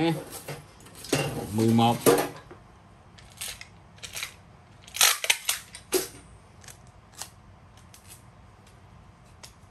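Hard objects being handled and knocked together on a surface: a few sharp clinks and clatters, loudest around five seconds in, then a scatter of lighter ticks.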